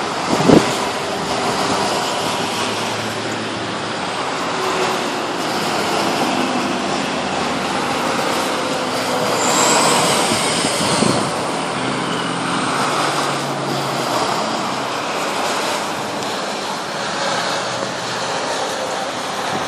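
Road traffic: engines of trucks and cars driving past, a steady noise of passing vehicles. A sharp knock comes just after the start, and a short, high rising whine about ten seconds in.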